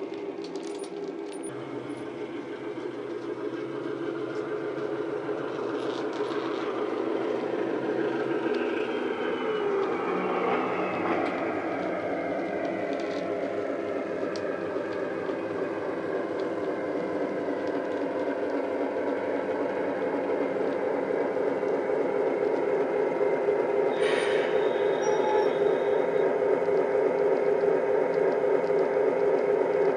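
Sound-fitted Dapol Class 73 model locomotive: its DCC sound decoder plays a Legomanbiffo Class 73 locomotive sound through a small EM1 speaker. The sound runs steadily and grows louder as the model approaches.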